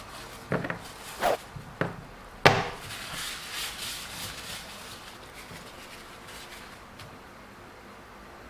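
Four short knocks and clunks of hard objects being handled, the last and loudest about two and a half seconds in, followed by a brief soft hiss and then low room tone.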